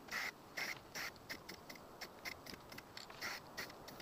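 Aerosol spray paint can hissing in a run of short, uneven spray bursts, several a second, as paint is dusted onto the truck's cowl.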